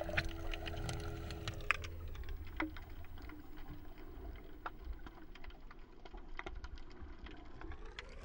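Underwater ambience: an irregular crackle of sharp clicks and ticks, several a second, over a low rumble.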